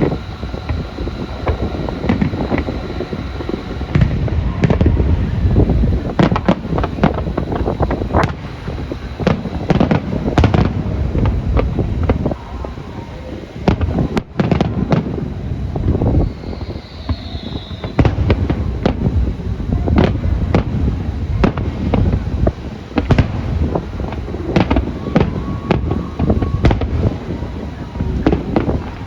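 Aerial fireworks going off continuously: many booming bursts and crackling reports in quick, irregular succession, with wind on the microphone.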